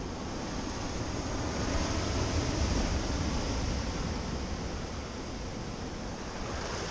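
Sea surf washing and breaking against the rocks below, with wind buffeting the microphone in a low, uneven rumble. The wash swells a little about two to three seconds in.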